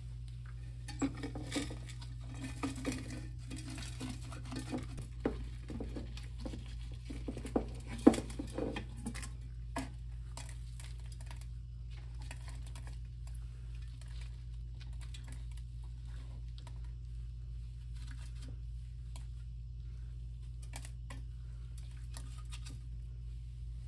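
Silver crystals being scraped off a cathode with a Bondo spreader in a glass beaker: scraping with many small clicks and crackles for about the first ten seconds. After that only faint occasional crackles over a steady low hum.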